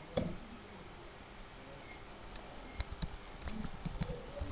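Computer mouse click just after the start, then a run of quick keyboard keystrokes and clicks in the second half as a search word is typed.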